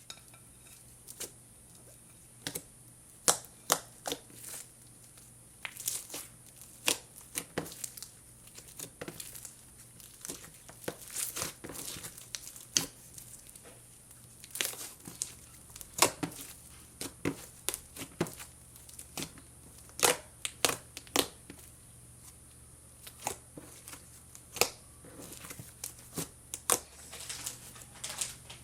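Freshly activated cloud creme slime made with hydrogel being squeezed, stretched and kneaded by hand, giving irregular crackling, sticky pops and clicks, some louder than others.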